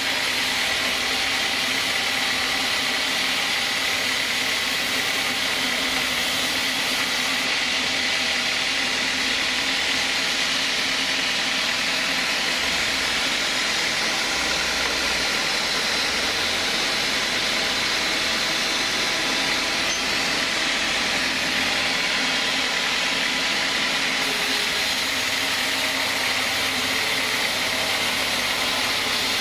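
Band sawmill ripping a timber beam lengthwise. The blade runs steadily through the wood, a dense hiss with a faint high whine over it.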